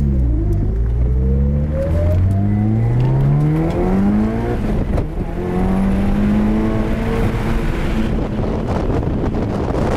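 Turbocharged four-cylinder engine of a Mitsubishi Lancer Evolution heard from inside the cabin under hard acceleration. Its revs climb for about four seconds, break off briefly at a gear change, then climb again. Rising wind noise joins near the end.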